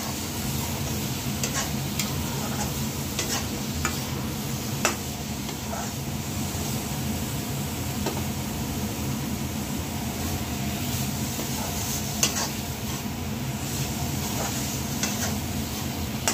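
Flat metal spatula stirring and scraping grated carrot halwa around a metal kadai, with a low sizzle of ghee under it and irregular clicks where the spatula knocks the pan.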